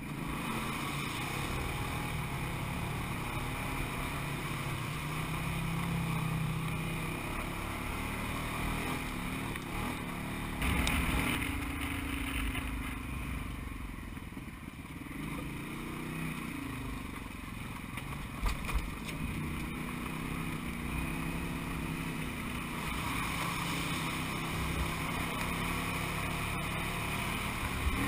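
Side-by-side UTV engine running under load, its pitch rising and falling with the throttle as it drives through shallow water and up a dirt trail. A brief louder rush of noise comes about eleven seconds in, and a few sharp knocks from the machine jolting over the trail come about two-thirds of the way through.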